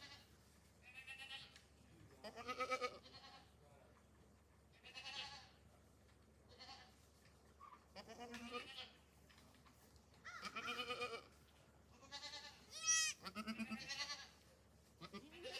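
Goats bleating: a string of short, quavering calls, one every one to two seconds. The loudest call comes about three-quarters of the way through and rises high in pitch.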